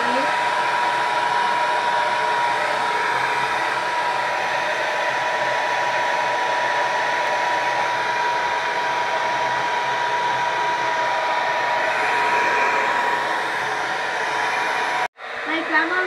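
Handheld hair dryer blowing steadily, a rush of air with a thin steady whine from its motor, used to blow-dry a wet Silkie chicken's feathers. The sound cuts off abruptly about a second before the end, then resumes.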